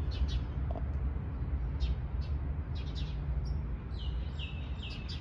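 Small songbirds chirping: short high notes scattered through, then a run of about five quick repeated notes near the end, over a steady low rumble.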